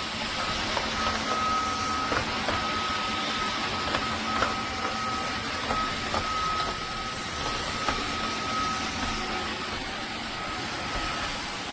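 Dreame G10 Combo cordless wet-dry vacuum running steadily, a constant motor whine over a steady rush of air, with a few faint clicks.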